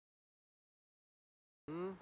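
Dead digital silence from an edit cut, broken near the end by a short pitched vocal sound lasting about a third of a second.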